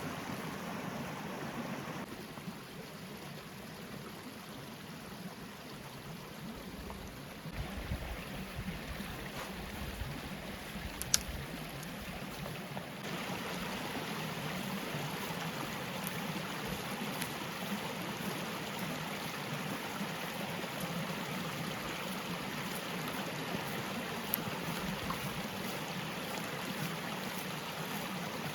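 Forest stream running steadily, a constant rush of water that drops lower for a few seconds and comes back stronger about halfway through. One sharp click sounds near the middle, and faint small ticks follow later.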